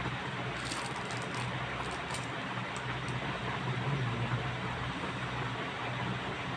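Steady background hiss with a low hum, and a few faint light clicks between about half a second and three seconds in.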